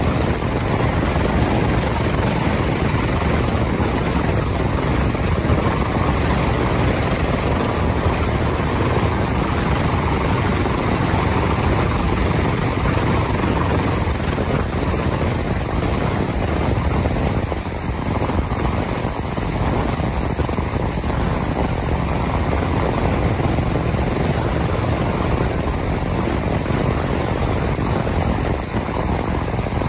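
Morantz M-115 ultrasonic cleaning tank running with a heavy metal part submerged in the cleaning solution: a steady, loud rushing noise of the tank at work.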